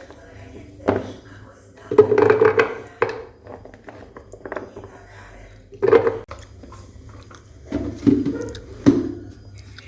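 A series of knocks and clatters, as of household objects being picked up and set down, spaced irregularly with short quiet gaps between.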